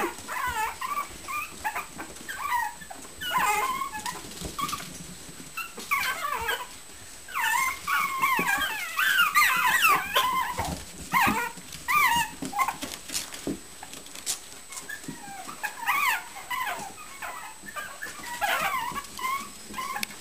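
Mini Shichon puppies yipping and whining as they play-wrestle: many short, wavering high-pitched calls in flurries, busiest in the middle, with light scuffling clicks between them.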